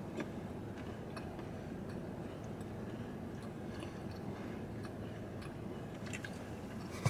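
Quiet chewing and small mouth clicks from people eating cookies, over a steady low hum of a car cabin.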